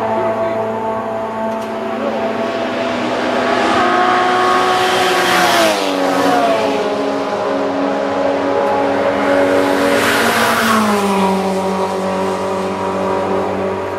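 Race cars going past at high speed, two of them in turn, each engine's pitch dropping sharply as it goes by, about halfway through and again near the end. Other race engines run on steadily in between.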